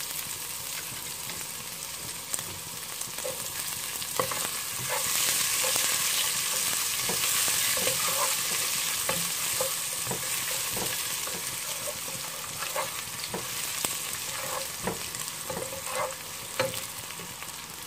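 Chopped onions frying with garlic and spices in hot oil in a nonstick pot, a steady sizzle that swells about five seconds in. A wooden spatula stirs them, with many short scrapes and taps against the pan.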